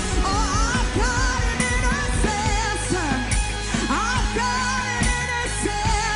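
Live worship band playing with sustained chords and bass, while a voice sings a wordless, gliding melody over it.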